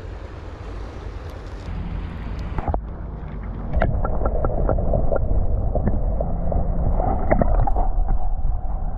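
Wind rumbling on the microphone over gurgling creek water. From about four seconds in it grows louder, with a run of small clicks and knocks.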